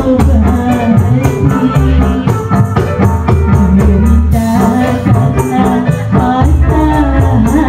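Live qasidah rebana band music played loud through a sound system: keyboard and drums with a quick, steady hand-percussion beat, and a woman singing into a microphone.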